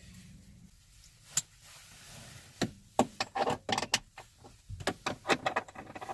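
Metal sockets clinking and rattling against each other on a loop of paracord while one is sorted out and picked off. There is a single sharp click about a second and a half in, then a run of quick clinks through the second half.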